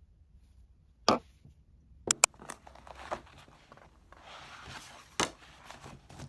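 A paperback book being handled on a desk: a sharp knock about a second in, a few taps, and then the paper pages rustling as they are flipped and smoothed open by hand.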